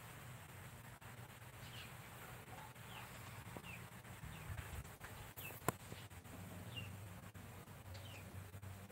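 Faint bird chirps, short and falling in pitch, every second or so, over a low steady hum. A single sharp click comes about two-thirds of the way through.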